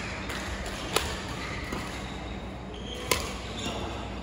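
Badminton racket strikes on a shuttlecock during a rally: two sharp hits about two seconds apart, the second the louder.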